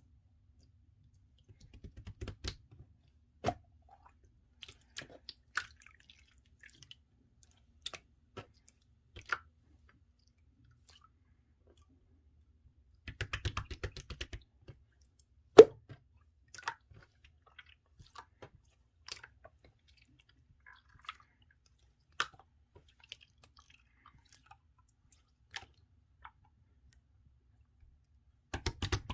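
Clear slime being squeezed and pressed by hand, making sticky clicks, squelches and small pops. There are bursts of rapid crackling about two seconds in, around the middle and near the end, with one loud sharp pop just after the middle one.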